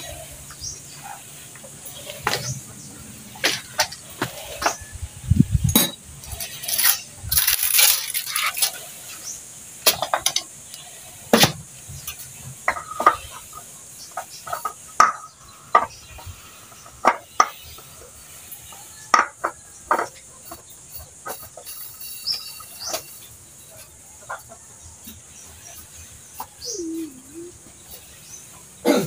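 Irregular light clicks, taps and knocks of hands working at the freshly fitted oil filter on a Mitsubishi 4DR5 diesel engine, which is not running.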